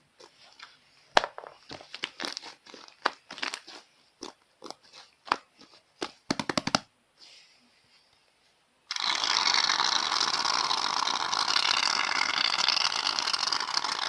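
Slime being squeezed and worked by hand, giving sticky clicks and pops, with a brief fast rattle about six and a half seconds in. About nine seconds in, an aerosol can of shaving foam sprays with a steady hiss for about five seconds.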